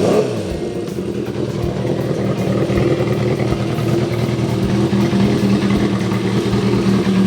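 Honda CB400Four's air-cooled inline-four running steadily at idle through a Yoshimura short exhaust with its glass-wool-wrapped baffle fitted, giving a quieter, higher-pitched note.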